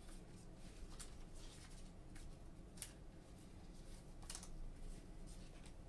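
Faint handling of trading cards by gloved hands: soft rustling, with a few light ticks as cards slide and flick against one another while being sorted through.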